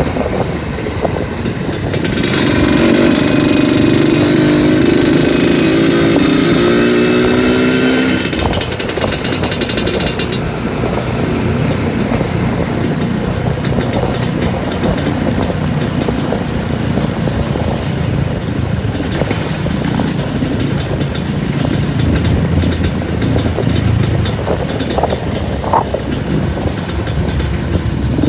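Two-stroke trail motorcycle engine under way. About two seconds in it revs up with a steadily rising pitch for around six seconds, then settles into steadier running with rough, noisy sound for the rest.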